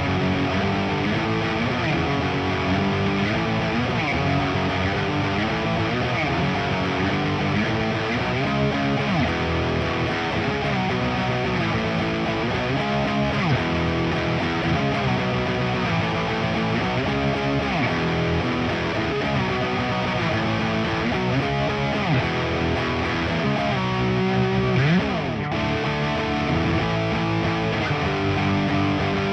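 Nik Huber Krautster I electric guitar with its stock Haussel bridge pickup, played through a Diezel VH4 amplifier into a Marshall 4x12 cabinet with Celestion speakers. It plays a continuous riff-and-lead passage with string bends.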